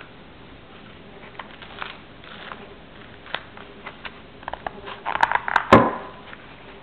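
Handling noise from blue canvas dodger fabric being held and moved over a stone countertop: scattered light taps and rustles, then a quick cluster of sharper clicks and a single louder knock about five and a half seconds in.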